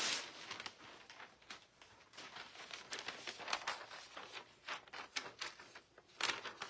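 Sheet of newsprint rustling and crinkling as it is unfolded, laid flat on the water of a marbling tray and pressed down by hand, skimming leftover paint off the bath between prints. Irregular crackles throughout, with a louder rustle right at the start and another near the end.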